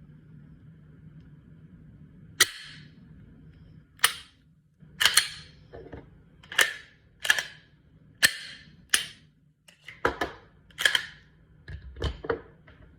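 Glock 19 Gen 5 pistol being worked by hand: about a dozen sharp metallic clacks, roughly one a second, starting a couple of seconds in.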